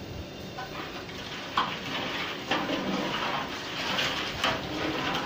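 Long-handled metal ladle stirring tomato rice in a large metal cooking pot, scraping and knocking against the pot with irregular clinks that start about a second and a half in.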